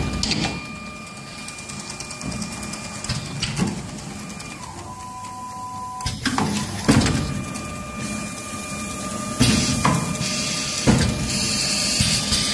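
Wooden ice-cream-spoon bundling machine running: sharp mechanical clacks every second or two and short hisses, over a steady high whine.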